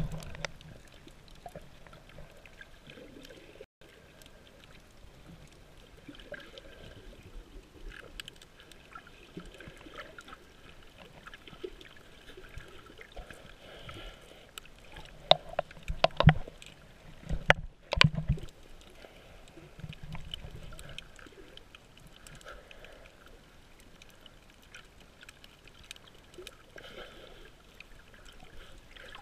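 Underwater sound heard through a GoPro's waterproof housing: a faint, muffled water noise with scattered small clicks, and a short run of louder knocks and thumps about halfway through.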